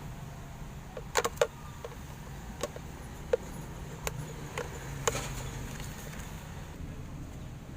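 Scattered light clicks and taps of plastic and metal electric-kettle parts being handled and fitted together during reassembly, over a steady low hum.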